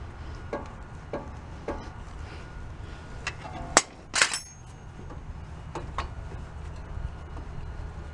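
Metal-on-metal clicks and clanks of large slip-joint pliers on a brake caliper as its pistons are squeezed back in for new pads. The loudest is a sharp clank with brief metallic ringing about four seconds in, over a low steady hum.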